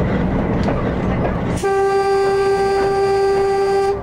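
Walker railmotor running along the track; about one and a half seconds in, its horn sounds one long steady note for about two seconds, cut off sharply.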